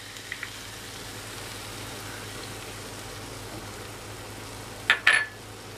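Steady sizzling hiss from a pan of egg-potato masala just after a quarter cup of water has been poured in, the water bubbling against the hot pan. A single sharp clink of a utensil or dish comes near the end.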